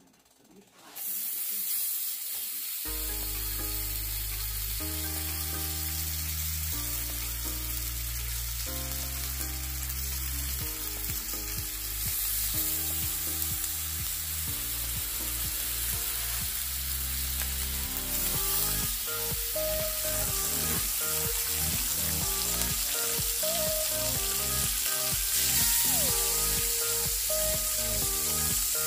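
Bacon sizzling as it fries in a cast iron skillet, a steady hiss, with background music coming in about three seconds in.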